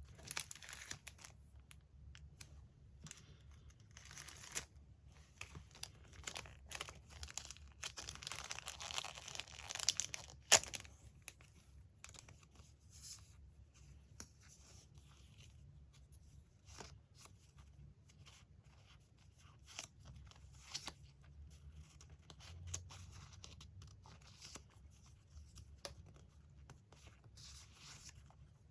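Paper being torn and handled: rustles and short tears of magazine paper with scattered light taps, a longer stretch of tearing in the middle ending in one sharp click.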